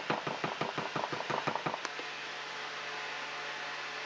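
Plastic onion-powder shaker shaken over a pot: quick, even rattling taps, about six or seven a second, that stop about two seconds in. A steady low hum stays underneath.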